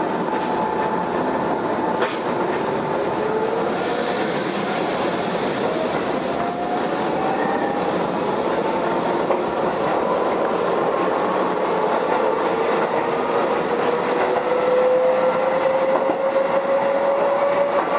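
Keisei 3500-series renewed electric train running, with the rumble of wheels on the rails. Over it, the traction motor whine rises slowly in pitch as the train picks up speed.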